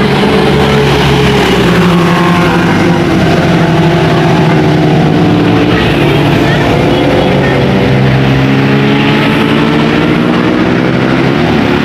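A heavy road vehicle's engine running loud and steady close by, its pitch slowly shifting as it goes past, over a wash of road noise.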